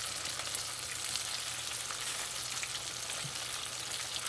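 Battered chicken wings deep-frying in 350-degree oil in a pot: a steady sizzle full of small crackles and pops.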